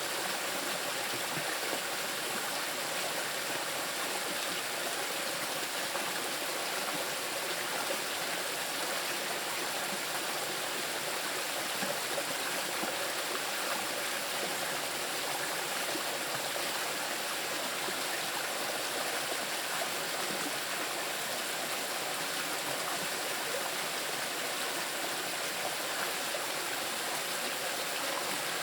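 A small river rushing over rocks, an even, steady wash of water.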